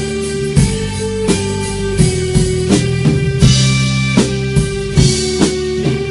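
A band plays with a drum kit, acoustic and electric guitars and keyboard: held chords over a steady beat of regular drum hits.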